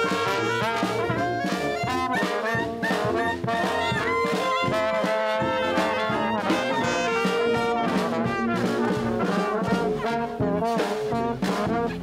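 A brass street band playing live: sousaphones, trombones, trumpet and saxophone play a lively tune over snare and bass drum beats.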